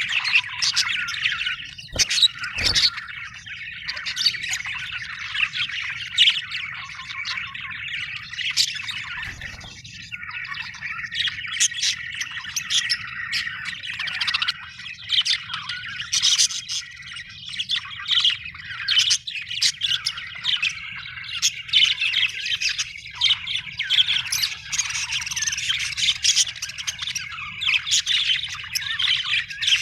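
A flock of budgerigars chattering nonstop, warbling and chirping with frequent sharp squawks from several birds at once.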